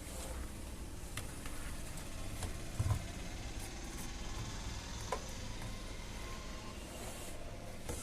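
Handling sounds from work on an opened television's chassis: a few scattered clicks and a dull knock about three seconds in, over a steady background hiss.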